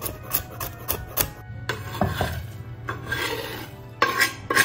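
Walnuts being crushed by hand: a run of sharp cracking clicks, then grinding, scraping rubs about two and three seconds in, and a few more clicks near the end.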